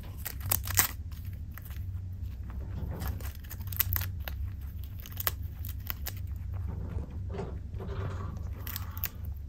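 Chinchilla nibbling and chewing a papaya leaf: irregular small crunches and tearing clicks as it bites off pieces, over a steady low hum.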